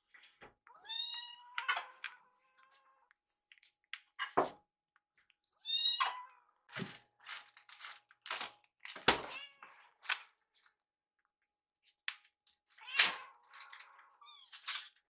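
Young kittens mewing several times in high-pitched calls, begging for food as it is being prepared, with a few short sharp knocks in between.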